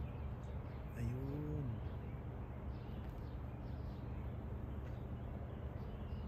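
Faint, scattered chirps of small birds in the trees, with one short low sound about a second in that rises and then falls in pitch.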